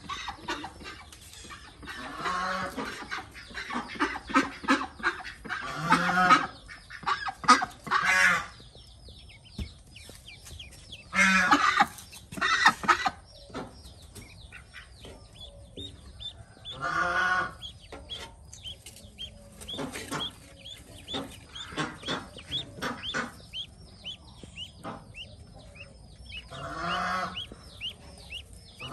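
Newly hatched Pekin ducklings peeping in many quick, high chirps, while an adult duck calls loudly in bursts every few seconds.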